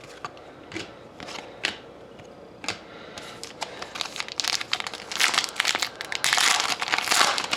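Trading-card pack wrapper being torn open and crinkled, after a few light clicks and rustles of cards being handled. The crinkling gets denser from about three seconds in.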